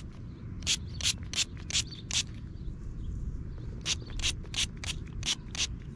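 Thumb rubbing dirt off a freshly dug 1964 silver Washington quarter held in the palm: short dry scraping strokes, about three a second, with a pause around the middle.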